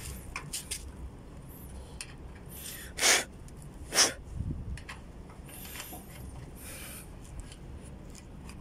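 Faint handling noise of hands at the brass refrigerant service valves and flare nuts, with a short breathy puff about three seconds in and a sharp click a second later.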